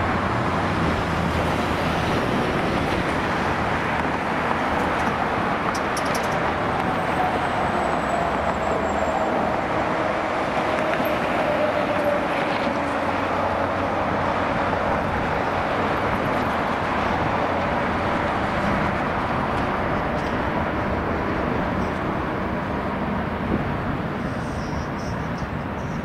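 Airbus A320neo jet engines running steadily as the airliner taxis and rolls along the runway, with a faint whine that slides slowly down in pitch as it passes.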